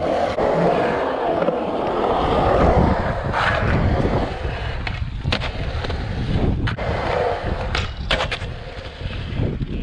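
Skateboard wheels rolling and carving on a concrete bowl: a steady rolling rumble of the wheels on concrete, with several sharp clacks through the middle and later part.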